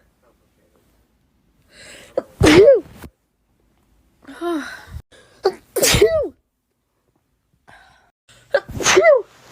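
A person with COVID sneezing three times, about three seconds apart. Each sneeze has a quieter in-breath before it and ends in a loud vocal 'achoo' that falls in pitch.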